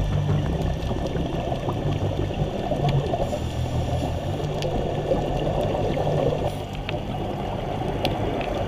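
Scuba diver's exhaled bubbles burbling out of the regulator underwater, a steady, muffled bubbling.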